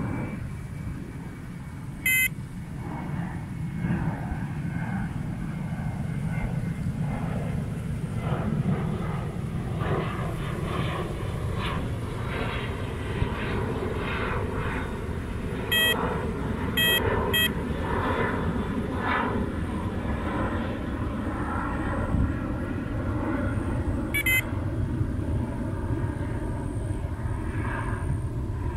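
Electronic carp bite alarm giving single short beeps, one about two seconds in, three close together around the middle and one more later, as line is drawn through the alarm. A steady low rumble runs underneath.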